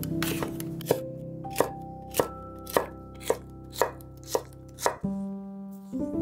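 A wide-bladed kitchen knife slicing a red bell pepper into strips on a wooden cutting board: a steady run of crisp knocks about twice a second, stopping about five seconds in, over soft background music.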